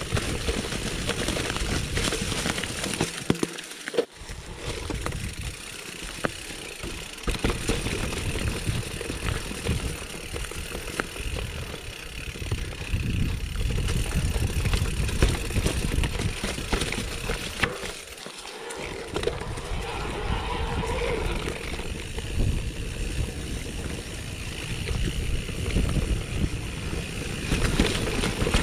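Giant Trance full-suspension mountain bike riding down a rough dirt and stone trail: a steady rumble of tyres over the ground, with rattles and clicks from the bike as it hits bumps. The low rumble drops away briefly twice, near the start and again about two-thirds of the way through.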